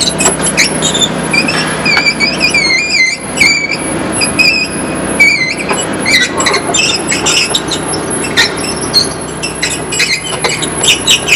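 Hitachi Zaxis 250 LCN excavator's steel crawler tracks squeaking as it travels, with long wavering high-pitched squeals in the first half giving way to many short squeaks and clanks, over the steady running of the diesel engine.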